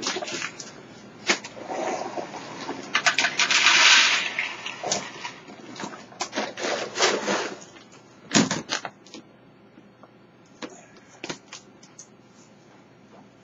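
A bag of Champ Mini Chunk dry dog food rustling, with kibble poured rattling into feeding dishes in two main pours. Around these are clatter and scuffing footsteps. A loud knock comes just past eight seconds, and it is much quieter for the last few seconds apart from scattered clicks.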